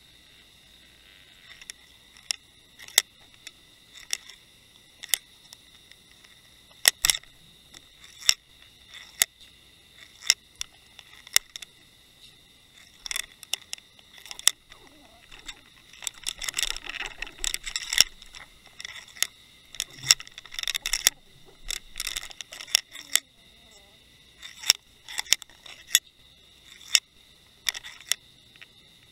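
Irregular sharp clicks and knocks, about one a second, with stretches of dense crackling rattle, picked up through an underwater camera housing as the fishing rig bumps and drags across a shelly sea floor. A faint steady high whine runs underneath.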